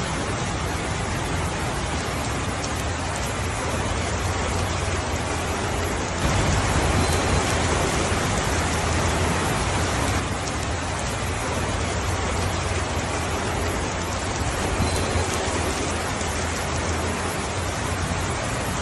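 Steady rain falling on a roof, with a low rumble underneath, swelling louder for about four seconds some six seconds in.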